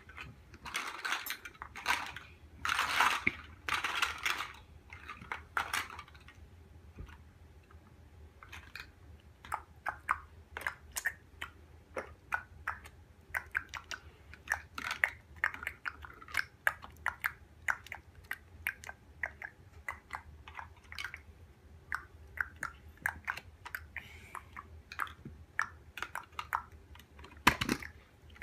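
Plastic Mega Bloks building blocks clicking and clacking as they are picked up, pressed together and rummaged through: many small sharp clicks, with a denser rattling clatter in the first few seconds and a louder knock near the end.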